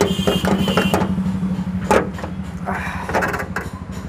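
A car engine idling under the open bonnet, with a few metallic clanks and a brief creak as the bonnet and its stay rod are handled.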